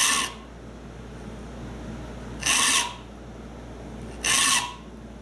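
Saw file rasping across the steel teeth of a Spear and Jackson dovetail saw, three short strokes about two seconds apart: the teeth are being sharpened to a rip profile, the file held flat and straight across.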